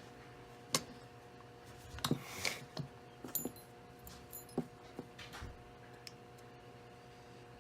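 Scattered light clicks and taps of small parts of an RC truck's bulkhead and drivetrain being handled and fitted together, over a faint steady hum.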